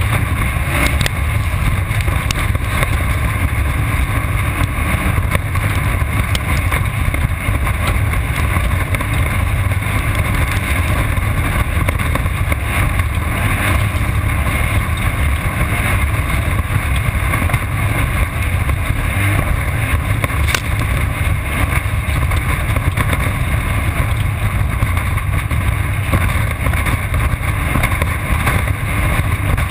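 Off-road race car at speed, heard from a camera mounted on board: a steady loud engine drone with a few sharp knocks and rattles from the chassis.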